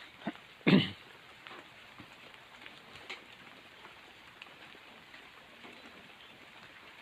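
Rain falling steadily, with a short, loud sound, unidentified, a little under a second in, and a few light drip-like ticks.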